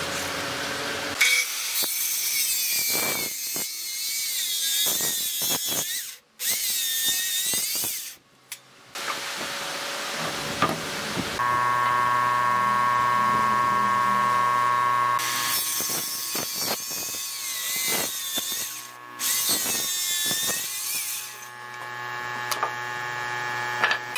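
Power tools cutting and working wood in a series of short, abruptly cut clips; around the middle a machine motor runs with a steady whine.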